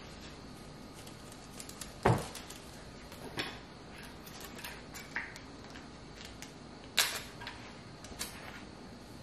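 A few short knocks and clacks of things being handled and set down. The loudest and deepest comes about two seconds in, and a sharp, bright clack comes about seven seconds in.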